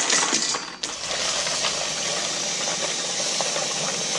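Ice cubes clattering into a stainless steel bowl. Then, from about a second in, a kitchen faucet runs steadily into the steel bowl of ice.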